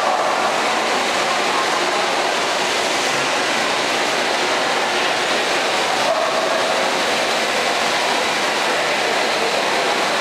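Steady din of a large indoor exhibition hall: a constant, even wash of noise with faint wavering voices blended into it.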